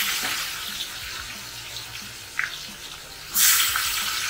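Marinated prawns frying in hot oil in a kadhai: a steady sizzle that flares up suddenly a little over three seconds in as more prawns go into the oil, then slowly dies down.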